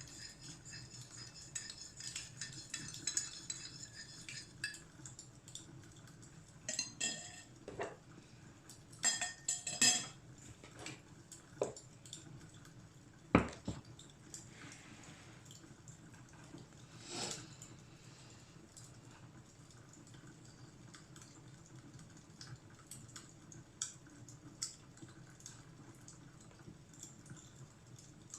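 Scattered light clinks and taps, several ringing briefly, most of them in the first half, with one sharp click about halfway. A faint steady low background runs underneath.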